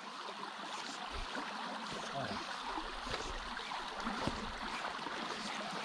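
Steady rush of a shallow, rocky stream flowing over stones and riffles.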